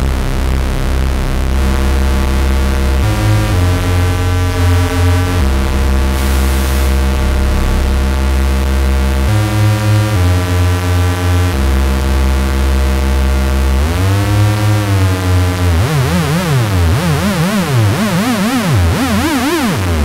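GForce Oberheim SEM software synthesizer playing a heavy low preset, held notes changing every second or two. From about two-thirds of the way in, the pitch swoops and then slides rapidly up and down in repeated glides.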